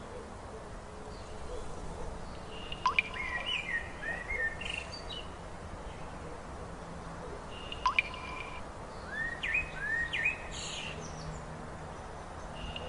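A songbird singing short phrases of sharp, high chirping notes, twice, with a third phrase starting near the end, over a steady outdoor background hiss.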